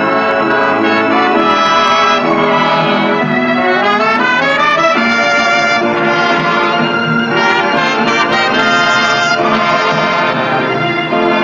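Revue orchestra playing a stage-number theme with prominent brass, trumpets and trombones, including a rising run about four seconds in.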